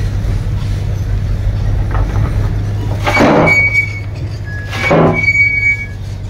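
Heavy diesel earthmoving machinery running with a steady low rumble. About three seconds in and again near five seconds come two short bursts of noise, each followed by thin, high squeals.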